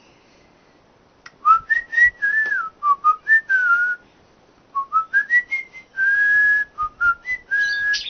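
A person whistling a short, wandering tune, the notes sliding up and down in two phrases, with one longer held note about six seconds in. Short sharp clicks come in between the notes.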